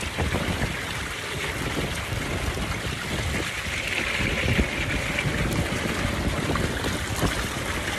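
Hot tub water churning and bubbling in a steady rush.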